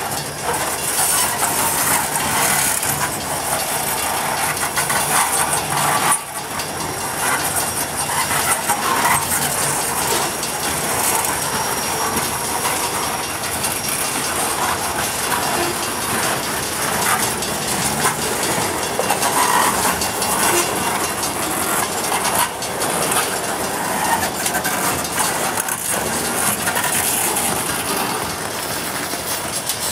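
Freight cars, mostly tank cars, rolling steadily past: steel wheels on the rail with repeated clicks over the joints and a continuous high hiss.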